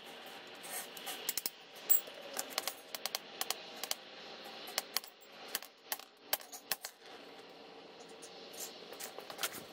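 Hand tools working on a stuck, paint-bound bolt on a truck's underside: irregular sharp metallic clicks and clinks, some in quick clusters.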